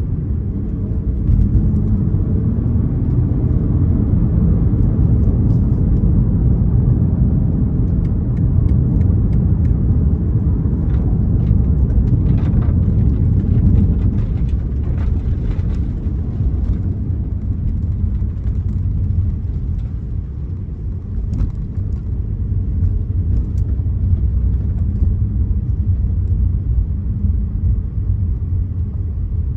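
A 2024 BMW M4 Competition, with its twin-turbo inline-six, being driven: a steady low engine and road rumble, easing a little about two-thirds of the way through, with a few light clicks near the middle.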